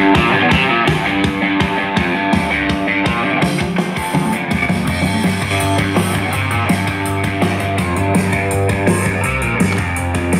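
Rock song with electric guitar and a steady beat, playing from a JBL Pulse 3 Bluetooth speaker.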